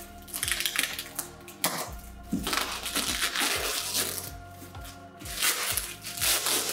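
Background music, over bouts of crinkling and tearing as plastic stretch wrap and tape are cut off a cardboard parcel with scissors.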